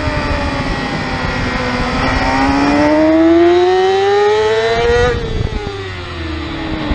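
Yamaha R6 600 cc inline-four race engine heard onboard at racing speed, with wind rushing over the microphone. Its note falls for about two seconds, then rises steadily under acceleration for about three seconds, then drops sharply about five seconds in and keeps falling.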